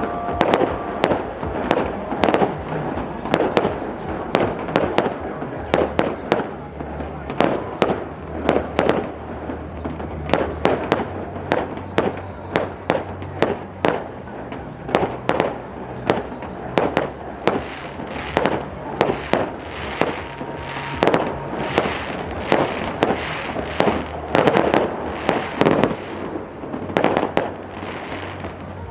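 Fireworks going off in a long, irregular string of sharp bangs, one to three a second.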